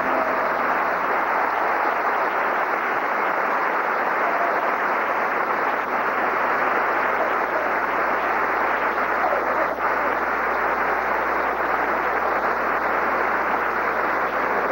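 Concert-hall audience applauding: a dense, even clapping that holds steady at full strength, with the soprano's last sung note dying away at the very start.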